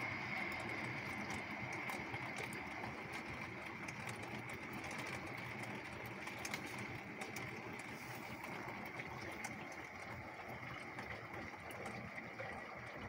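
Torrential rain falling on a wet street: a steady hiss with a thick patter of drops, easing slightly over the seconds.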